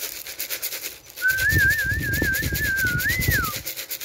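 A tin of pigeon feed shaken in a rapid, even rattle to call Birmingham Roller pigeons in to the loft. About a second in, a warbling human whistle starts and ends with a rise and fall, over low pigeon cooing.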